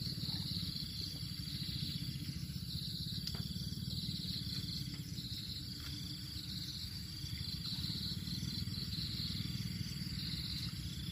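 Insects trilling in repeated high-pitched bursts, each lasting about a second, over a steady low rumble.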